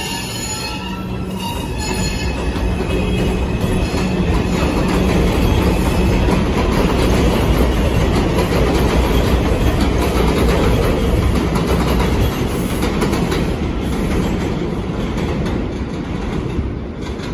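Bombardier R142 subway train pulling out along an elevated steel structure. A few high motor tones whine in the first couple of seconds over the rumble. The rumble and clatter of wheels over the rails then swells to its loudest midway and eases off as the train draws away.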